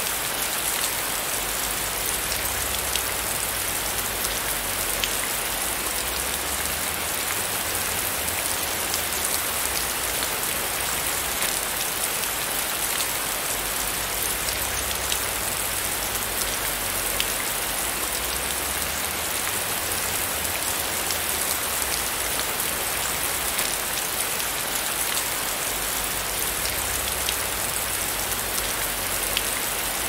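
Heavy rain falling steadily in a forest: a dense, even hiss dotted with many small ticks of individual drops.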